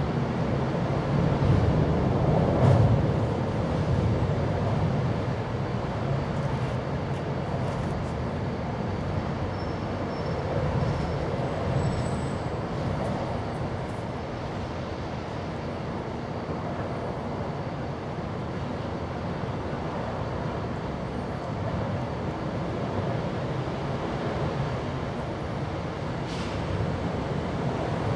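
Steady low outdoor background rumble, a little louder in the first few seconds.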